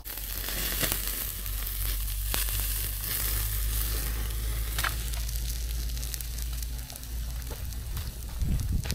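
Hot, freshly grilled sirloin steak sizzling as it is lifted off a wood-fired stove's grill and laid on an enamel plate, with a few sharp clicks.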